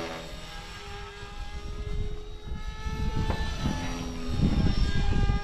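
Blade 330 S electric RC helicopter flying at a distance: a steady whine from its motor and rotor blades whose pitch shifts now and then, with low wind buffeting on the microphone.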